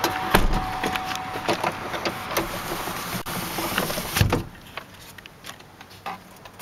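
Steady rumble of background highway traffic with small handling clicks in the truck cab, broken by a heavy thump about four seconds in, after which it is much quieter.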